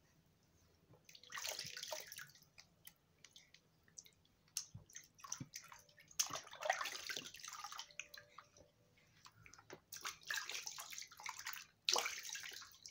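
Bath water splashed and poured by hand over a newborn in a plastic baby bathtub, in four splashing spells of a second or two each, with small drips and trickles between them.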